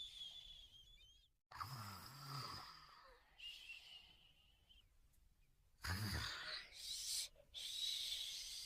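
Cartoon puppy snoring: low snores about one and a half seconds in and again near six seconds, over a high wavering whistle, with abrupt breaks where the snippets are cut together.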